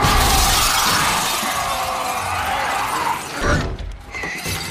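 A loud glass crash right at the start, the shattering and falling debris dying away over about three seconds, with tense film score underneath; a low thud comes near the end.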